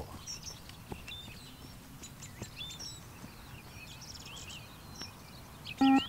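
Small birds chirping over a low, steady outdoor background. Near the end comes one short, loud electronic beep from the multi-stage fitness test (beep test) recording, the signal that marks the end of a 20 m shuttle.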